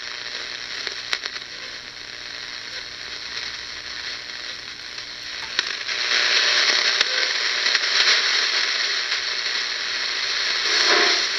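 Hiss and static from a WWII BC-454B shortwave receiver's speaker as it is tuned across the 3–6 MHz band with the BFO on, growing louder about six seconds in. Near the end a pulsing tone signal comes in, which the operator takes for a facsimile station.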